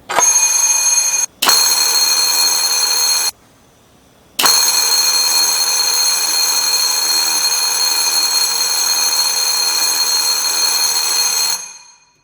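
Electric fire alarm bell ringing, set off when the cut fishing line lets the detector's limit switch close. The ringing stops for a moment about a second in and for about a second near the three-second mark, then rings steadily for about seven seconds before dying away.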